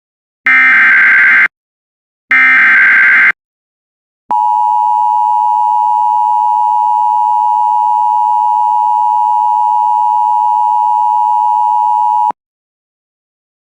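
Emergency Alert System alert preamble: two one-second screeches of the SAME digital header, whose data tones encode the coming alert. After a short pause comes an eight-second steady attention-signal tone that cuts off sharply, signalling that a voice warning message follows.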